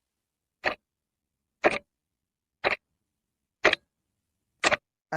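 Clock-tick sound effect: five sharp ticks, one a second, counting down the time allowed to answer a quiz question.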